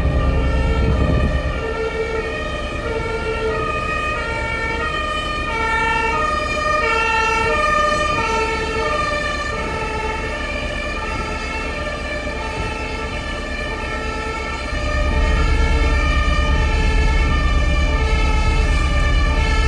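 Emergency vehicle siren sounding continuously, its tone switching back and forth between two pitches about once a second, over a deep rumble that is heavy near the start and grows louder again in the last few seconds.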